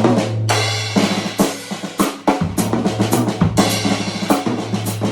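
Drum kit played with fast, continuous Swiss Army triplets moved around the drums and cymbals: quick strokes in threes, with the drums ringing and cymbals washing.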